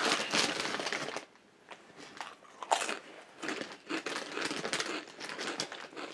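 Crinkling of a chip bag for about the first second, then crunching as spicy chips are chewed close to the microphone, in short irregular crunches.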